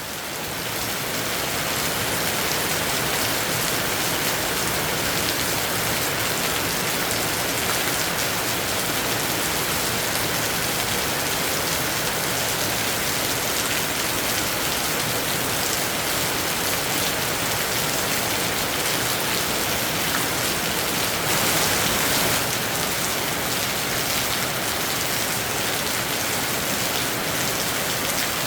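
Heavy rain pouring steadily, swelling briefly about three-quarters of the way through.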